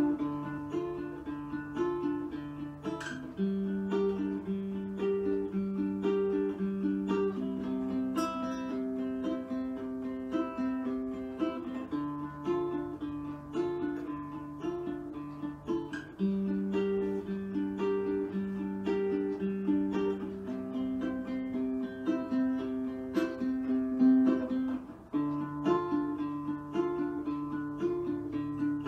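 Background music: a light tune on plucked strings, ukulele-like, over a repeating bass line.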